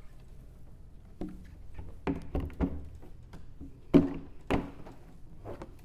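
Plastic hopper bowl of a slush machine being fitted onto the machine and locked down: a few knocks about two seconds in, then two sharper knocks around four seconds, with light clicks between.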